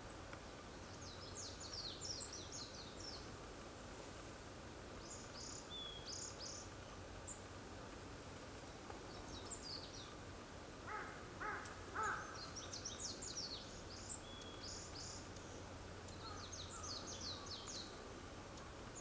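Long-tailed tits calling: bursts of rapid, very high, thin notes several times over. About two-thirds of the way through, another bird gives three short, lower-pitched calls.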